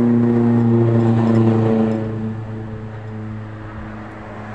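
A road vehicle's engine passing close by, a steady low drone that is loudest for the first two seconds and then fades.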